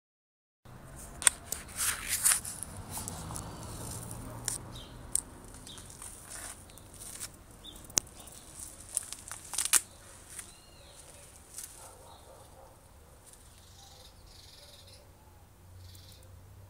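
Scattered sharp clicks and rustles, loudest and most frequent in the first few seconds, over a low outdoor background with a few faint bird chirps.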